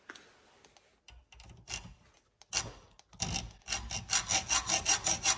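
Hacksaw cutting a groove into the metal seal housing of a motorcycle rear shock held in a vise. A few scattered strokes come first, then from about three seconds in a fast run of short strokes at about four to five a second. The groove is cut so the internal retaining clip can be rotated to it and popped out.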